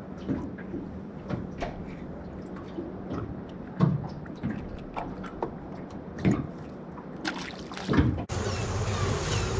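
Water sloshing against a small boat's hull with irregular knocks and clicks from the boat, over a faint steady low hum. About eight seconds in it cuts abruptly to a steady rush of wind on the microphone as the boat runs.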